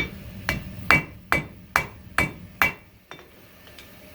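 Hammer blows on hot 5160 spring steel over an anvil, drawing a spear point on the stock: about seven strikes at roughly two a second, each with a short metallic ring, then a pause for the last second and a half.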